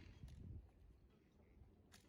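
Near silence: the last of a revolver shot's echo dies away at the start, followed by a few faint low thumps within the first half second.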